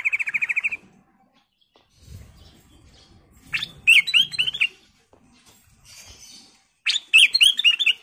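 Ruby-throated bulbul (kutilang emas) singing: a quick trill of rapid notes at the start, then two loud phrases of about five clear, bending whistled notes, a few seconds apart.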